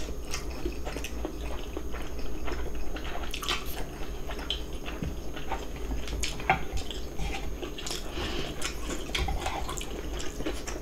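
Eating sounds over a bowl of cold radish-kimchi noodle soup: chewing and slurping, with occasional sharp clicks of utensils against the bowls.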